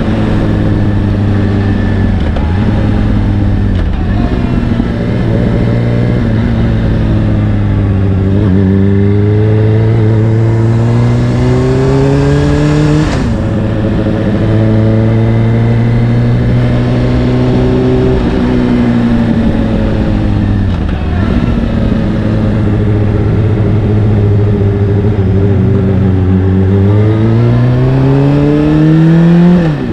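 Honda CBR600RR's inline-four engine through an Akrapovic exhaust, out on the road: the engine note climbs under acceleration and falls away several times, dropping most sharply about halfway through and again right at the end.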